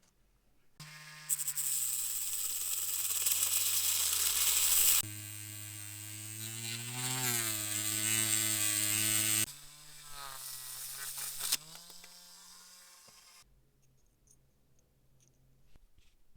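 A small electric power tool running with a hum and a hissing, abrasive whir, its pitch and level shifting in steps as it works. It starts about a second in and stops a few seconds before the end.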